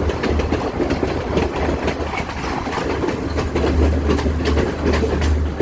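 Train running on the rails, with a steady low rumble and wheels clicking over the rail joints.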